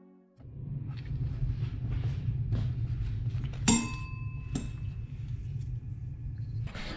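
Small hand tools working on the Predator 212cc engine's cylinder head and valve gear over a low steady hum: scattered light knocks, then one sharp metallic clink that rings briefly about halfway through, with a lighter clink just after.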